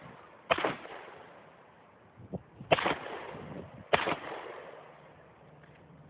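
Three gunshots from a competitor firing from a barricade: one shortly after the start, then two more a little over a second apart near the middle. Each crack trails off in an echo over the range.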